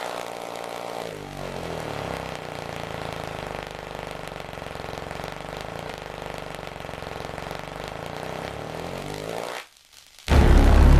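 Channel intro sound effect: a steady engine-like drone of several held tones, with a pitch sweep sliding down about a second in and one sliding up near the end. It cuts out briefly and a louder low rumble comes in just before the end.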